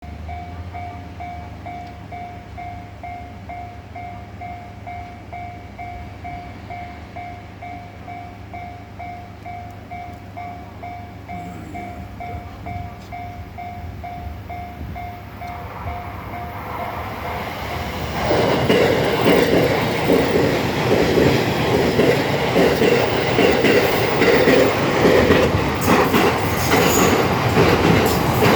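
Japanese level-crossing warning bell ringing in a steady repeating pattern. About eighteen seconds in, a JR Takasaki Line electric commuter train arrives and passes close by. The loud running noise of its wheels on the rails drowns out the bell.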